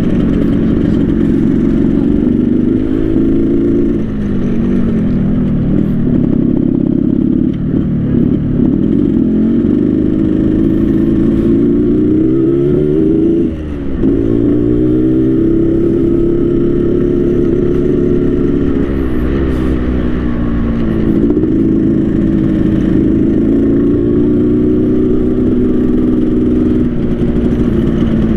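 Yamaha RX King 135cc two-stroke single-cylinder motorcycle, set up with the raspy 'ngorok' exhaust, being ridden on the road. The revs climb and fall several times through the gears, with a brief throttle-off dip about halfway through.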